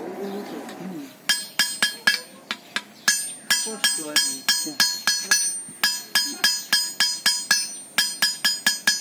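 Blacksmith's hammer striking iron on a small anvil, starting about a second in: ringing metallic strikes about three to four a second, in runs with short pauses.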